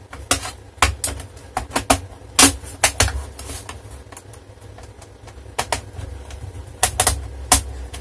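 Irregular sharp clicks and knocks of laptop parts being handled and fitted together during reassembly, in two clusters: a run of them over the first few seconds and another near the end.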